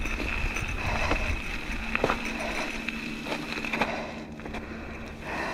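Mountain bike rolling along a rough dirt trail: steady riding noise with a scattering of short clicks and knocks as the bike rattles over bumps.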